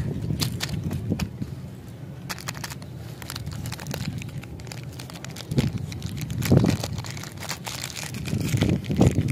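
Plastic-and-foil lollipop wrapper crinkling as fingers tear and peel it open: irregular sharp crackles over a dull handling rumble, louder about six and a half seconds in and again near the end.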